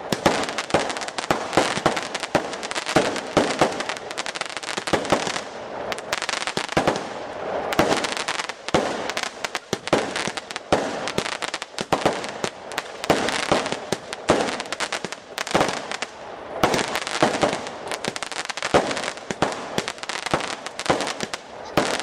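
A fireworks display: a dense, unbroken string of bangs and crackles, several a second.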